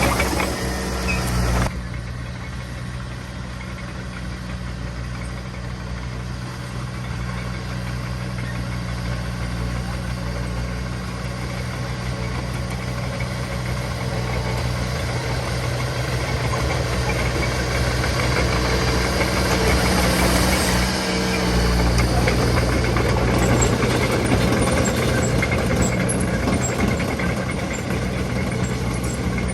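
Heavy construction machinery's diesel engine running steadily, with the sound changing abruptly a couple of seconds in and then slowly growing louder through the middle.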